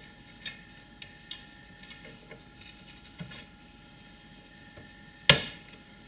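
Light clicks and taps of a Power Mac G4 CPU daughter card being handled over the motherboard, with one sharp, much louder knock about five seconds in as the card is set down and pressed into place.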